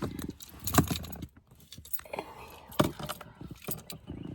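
Keys jangling with a few sharp clicks as a car is unlocked from the inside.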